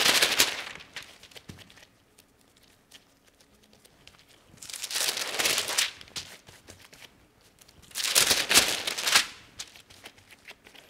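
Baking paper crinkling in three bursts of about a second each, as a dough log is rolled and pressed inside the paper.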